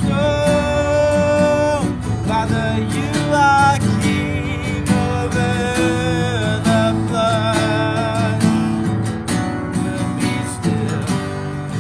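Acoustic guitar strummed to accompany a voice singing held notes in a worship song.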